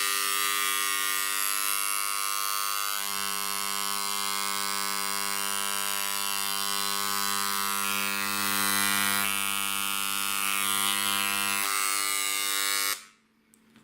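Dremel Engraver 290-3 electric engraver buzzing steadily on its shallowest stroke setting while its carbide bit engraves leather. A deeper hum joins about three seconds in and drops away near twelve seconds. The engraver switches off about a second before the end.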